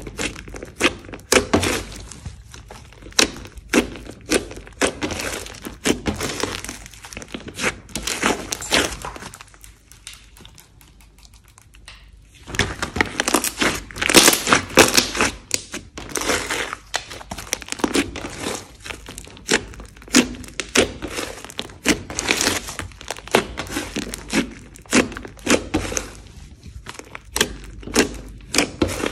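Thick glossy slime mixed with foam beads being kneaded and pressed by hand, giving a dense run of irregular sticky clicks and crackles. The sound eases into a quieter lull about ten seconds in, then picks up again.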